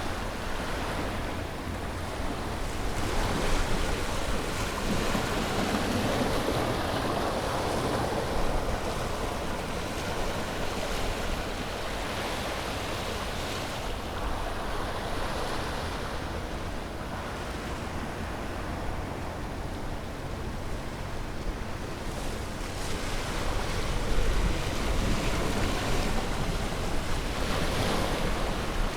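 Sea waves breaking and washing on a beach, the surf swelling and easing every several seconds, with a steady low rumble from wind on the microphone.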